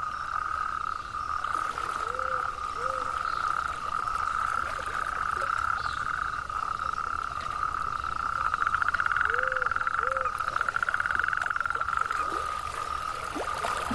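Dense breeding chorus of frogs and toads: a steady high trilling runs throughout. A nearer, louder fast-pulsing trill swells between about eight and eleven seconds. Twice, a pair of short, lower, arching calls sounds, around two seconds in and again around nine and a half.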